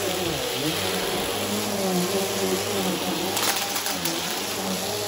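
Bissell bagless upright vacuum cleaner running on a rug, its motor pitch dipping and recovering as it is pushed about. Debris crackles briefly up the intake about three and a half seconds in.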